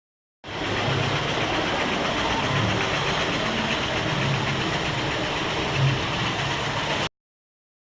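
Steady mechanical running noise with a low hum underneath, starting abruptly about half a second in and cutting off suddenly near the end.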